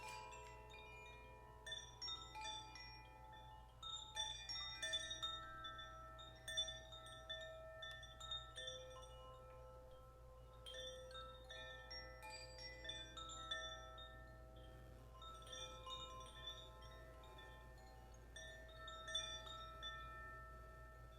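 Soft chiming: many bell-like tones at different pitches, struck every second or so, overlapping and ringing out over a faint steady low hum.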